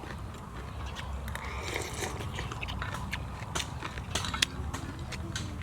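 Close-up eating sounds: a person chewing a mouthful of noodles, with many short, sharp mouth clicks scattered throughout.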